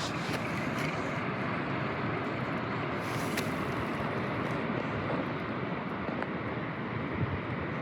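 Steady rushing outdoor noise, wind and open-air ambience on the microphone, with no clear tones or distinct events.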